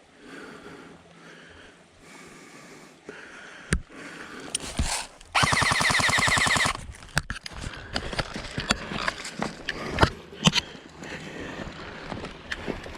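Airsoft gun firing a single full-auto burst of rapid, evenly spaced shots lasting about a second and a half, partway through. Scattered single clicks and rustling come before and after it.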